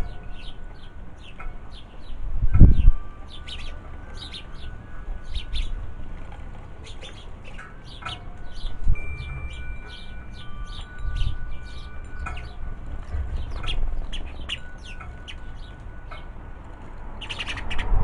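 Small songbirds chirping over and over, with metal tube wind chimes ringing in long steady tones now and then, over a low wind rumble on the microphone. A loud, short, low thump comes about two and a half seconds in.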